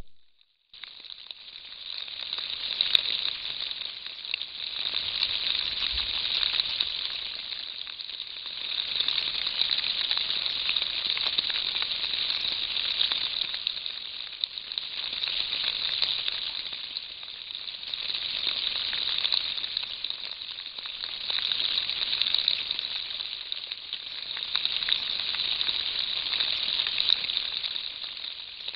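A dense chorus of frogs calling, heard as a high crackling hiss that swells and fades every three or four seconds.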